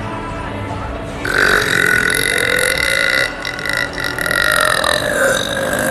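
A person's long belch, starting about a second in and lasting over four seconds, held at a fairly steady pitch that sags slightly near the end.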